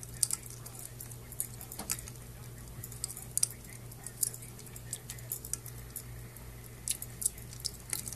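Ice cubes clinking against a stainless steel dog water bowl as a puppy noses and paws at them, in irregular sharp clicks.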